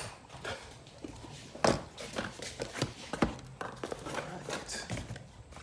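Irregular light knocks and clicks, like objects being handled and set down.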